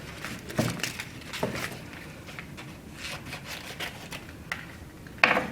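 Self-adhesive contact paper being handled and cut: scattered rustling, crackling and small clicks, with one louder, sharper sound near the end.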